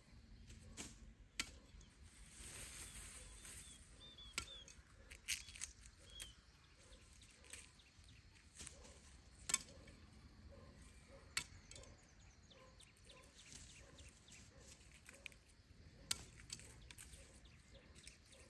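Quiet outdoor ambience: scattered sharp clicks and knocks, with a few faint short bird chirps.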